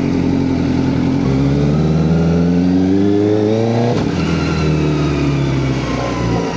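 Kawasaki ZX-4RR inline-four engine revving up under acceleration, its pitch climbing steadily. About four seconds in the note breaks off sharply, as at a gear change, and the engine sound weakens after that.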